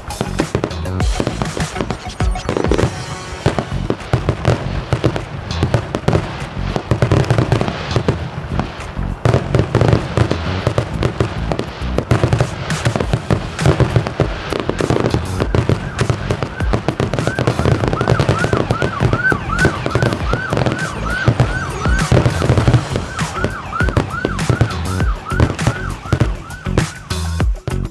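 Music with a steady heavy beat and many sharp hits. From a little past halfway, a high wailing sound rises and falls about twice a second until near the end.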